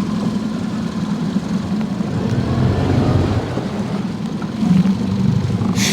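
Small outboard kicker motor running steadily at low speed.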